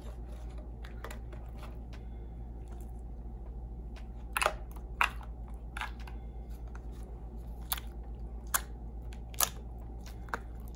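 Green slime being squished and kneaded by hand in a plastic tub: soft squelching with several sharp pops and clicks from about four seconds in, as air pockets burst in the slime. A steady low hum runs underneath.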